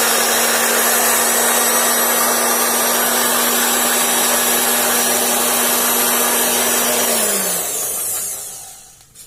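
Octa Takayama handheld round-knife cloth cutting machine running steadily with a constant hum and hiss as it cuts through a stack of fabric layers. About seven seconds in it is switched off and winds down, its pitch falling as the blade slows.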